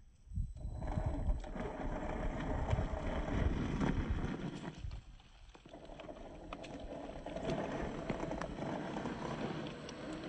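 A scale RC crawler's 27-turn brushed electric motor and gearbox whining steadily as it drives over dirt and rocks, with low thumps and scrapes from the tyres and chassis on the ground. The drive drops out briefly twice, right at the start and about five seconds in.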